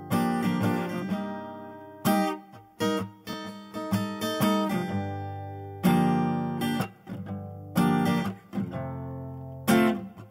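Instrumental intro of a pop song: strummed chords struck every second or two, each left to ring and fade, over low sustained bass notes, with no singing yet.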